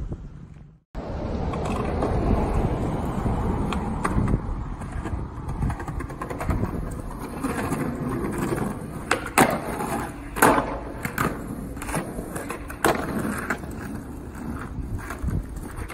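Skateboard wheels rolling over rough asphalt and concrete sidewalk, a steady rumble, with several sharp clacks of the board hitting the ground from about nine seconds in, the loudest two about a second apart.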